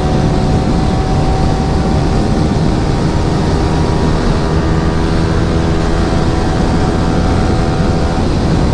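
Yamaha R15 V3's single-cylinder engine, breathing through an Akrapovic exhaust with its dB killer fitted, running at a steady high-speed cruise with the engine note holding one pitch.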